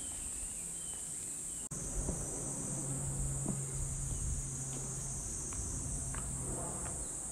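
Insects shrilling steadily in a high continuous drone, with a low steady hum underneath and a few faint ticks. The sound drops out for an instant a little under two seconds in.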